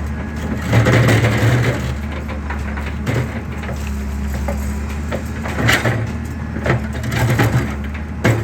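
Excavator engine running steadily while concrete is crushed, with a patch of crunching about a second in and sharp cracks now and then after that.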